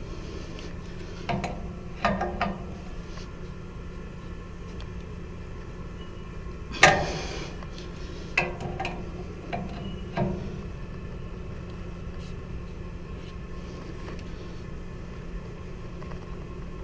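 Steady hum of running equipment, with a few sharp metallic clicks and clanks of a wrench working a threaded pressure-relief-valve fitting. The loudest clank comes about seven seconds in.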